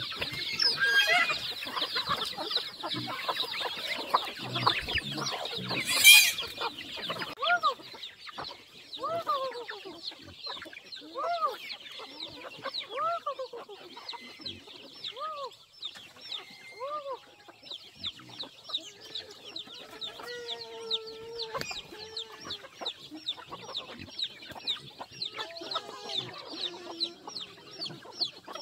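A flock of free-range chickens clucking, with half-grown chicks peeping high and constantly. About six seconds in there is a single sharp knock.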